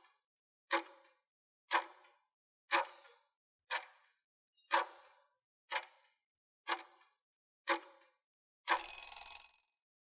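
Countdown timer sound effect: a clock tick once a second, nine times, as the on-screen count runs down. Near the end a ring of about a second marks time's up.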